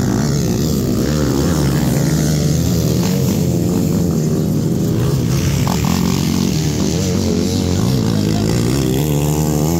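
Several racing dirt-bike engines revving up and down as the bikes ride past on the dirt track. A steady low drone runs underneath.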